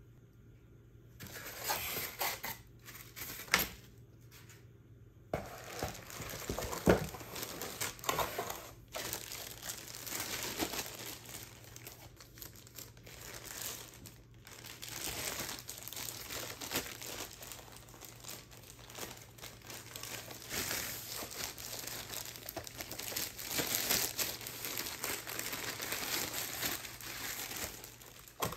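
Plastic film wrapping crinkling and rustling as it is handled on a boxed solar street light panel. There are a few light knocks in the first few seconds.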